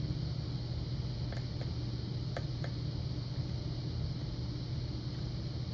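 A few faint ticks of a lock pick probing the pins of a Yale Punisher pin-tumbler lock, over a steady low hum.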